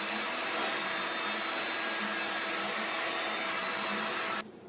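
Heat gun running, a steady whir of blown air with a low motor hum, used to speed the cure of casting urethane in a silicone mold; it cuts off abruptly near the end.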